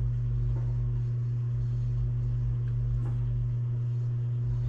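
A steady low hum, even in level throughout, with a few faint light clicks.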